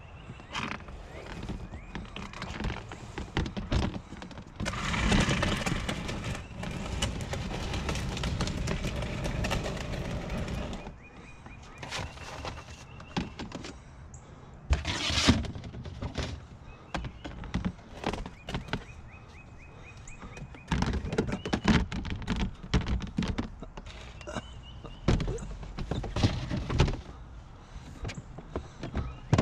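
Thumps, knocks and clatter of curbside junk being picked up and handled, with a louder steady rushing noise lasting about six seconds from about five seconds in.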